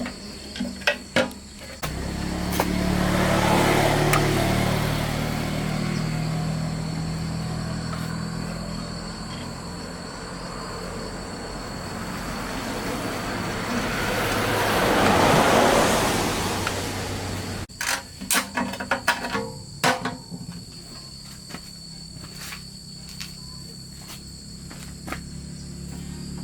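A small petrol engine running with a steady hum that swells louder twice. Sharp clicks and knocks come near the start and again after the sound cuts off abruptly about 18 seconds in, and a quieter hum carries on after that.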